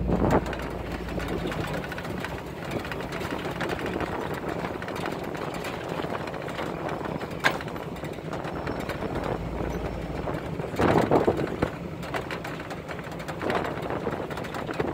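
Vehicle engine running at low speed while it drives over rough, grassy ground. A sharp knock about seven seconds in, and a louder stretch a few seconds later.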